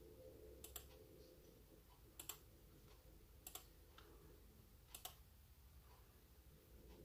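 Faint clicking at a laptop, four quick double clicks roughly a second and a half apart, over a faint low room hum.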